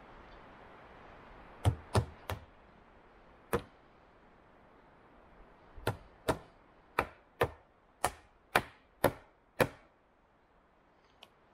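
Wooden mallet driving a wooden peg into a log handrail: a series of sharp knocks, three quick ones, a single one, then eight steady blows about two a second.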